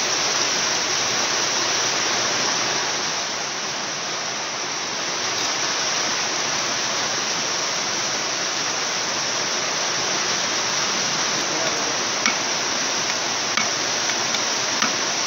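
A steady, even hiss, with a few light taps near the end as a hammer is set against the Honda EP1000 generator's flywheel nut.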